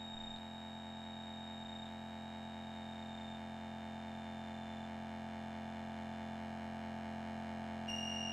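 Eerie synthesizer drone: a bed of steady low sustained tones slowly swelling in volume, with a thin high whistling tone that fades out around the middle and a new pair of high tones coming in near the end.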